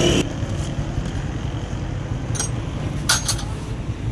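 Sharp clicks as the Honda CD70's pleated paper air filter and its plastic and rubber intake housing are handled and fitted together: one click about two and a half seconds in and a quick pair just after three seconds, over a steady low rumble of vehicle noise.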